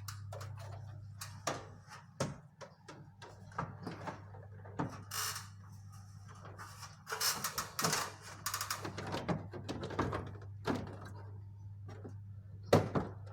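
Plastic clicks, knocks and scraping as the air conditioner's plastic casing is fitted back onto the indoor unit, with a sharper knock near the end, over a steady low hum.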